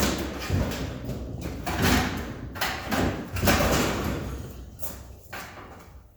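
An old kitchen oven being pushed into a tight opening: its sheet-metal body scrapes and slides in several rough surges, with a few knocks. The sound fades toward the end.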